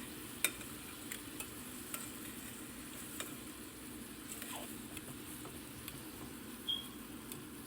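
Chicken pieces sizzling gently in olive oil in a frying pan on low heat, with a few faint clicks.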